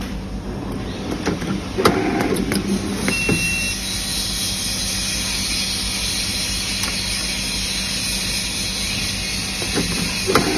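Thread-sealing tape winding machine at work: clicks and clatter as a threaded fitting is pushed between its rollers, a short high tone about three seconds in, then a steady whir while the tape is wound onto the threads. More clicks come near the end as the part is drawn out.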